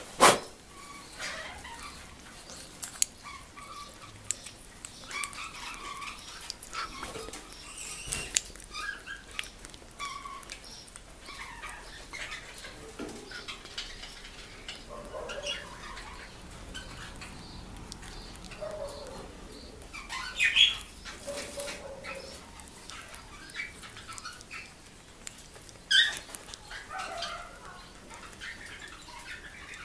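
Senegal parrots making scattered soft chirps and short squawks, with a few louder calls about two-thirds of the way through. There is a sharp knock right at the start.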